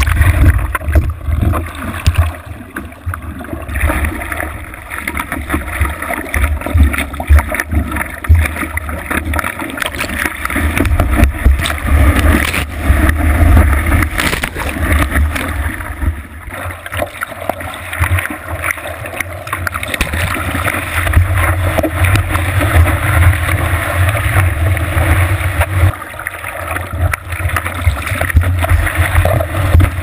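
Whitewater rushing and splashing around a surfboard as it is paddled and ridden through small breaking waves, heard through a board-mounted action camera, with a heavy low rumble of wind and water buffeting the microphone that swells and eases.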